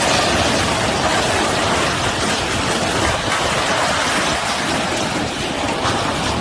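Steady dense hiss with a fine patter, like heavy rain falling on a surface. It cuts in suddenly and runs on without letting up.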